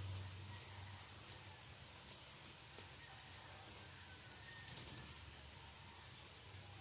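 Domestic cat scratching its neck and collar with a hind paw: a quick run of small dry clicks and scratches, with a denser flurry about five seconds in. A low hum sounds for about the first second.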